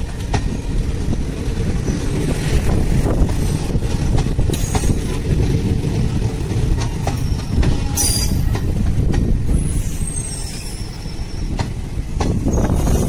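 Indian Railways passenger coaches rolling past at close range: a steady low rumble of steel wheels on the rails. A few sharp clanks come through, and a faint high squeal is heard about ten seconds in.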